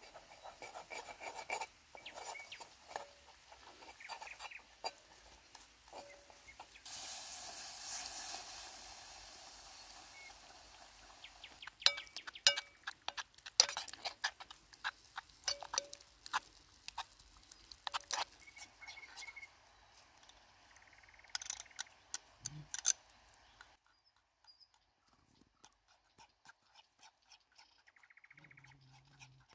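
Metal spoon stirring a sauce in a metal pot, clicking and scraping against the sides again and again, with a steady hiss lasting about four seconds about seven seconds in.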